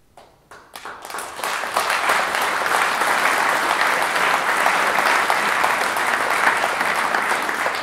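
Audience of a few hundred applauding: a few scattered claps at first, swelling within about a second and a half into dense, steady applause that begins to die down near the end.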